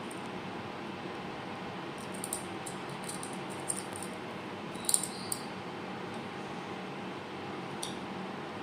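Sun conure making a few short, faint high chirps and clicks over steady room hum, the loudest about five seconds in.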